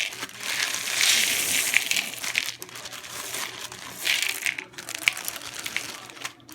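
Dry raw beans being handled: a crinkling bag and beans rattling and clicking, in several rustling bursts with scattered sharp clicks.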